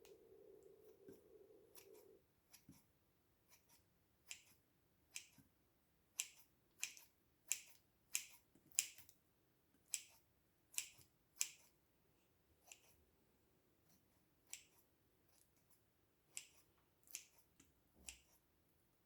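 A series of sharp, short clicks at irregular spacing, about one a second, loudest in the middle stretch. A low steady hum stops about two seconds in.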